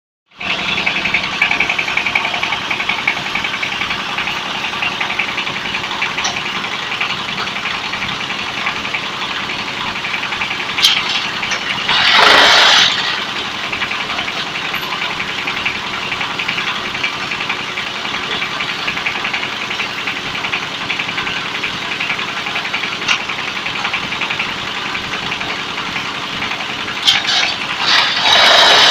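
Concrete block (batako) press machine running, its motor giving a steady, even machine sound. Two louder rushing surges stand out, one about 12 seconds in and one near the end.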